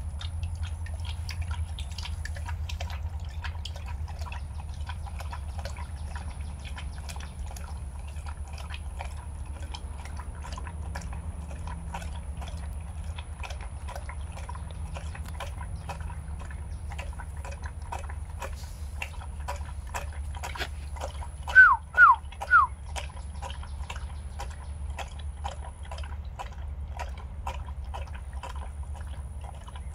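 A dog lapping milk from a steel bowl: quick wet tongue laps, several a second, over a steady low hum. About two-thirds through, three short chirps, each falling in pitch, stand out louder than the lapping.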